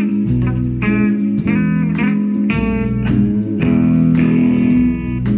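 Live band playing an instrumental intro: electric guitar lines over drums keeping a steady beat.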